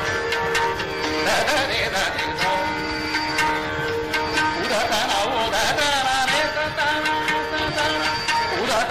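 Hindustani classical vocal in Raag Yaman: a male voice singing sliding, ornamented phrases over a steady tanpura drone, with tabla strokes.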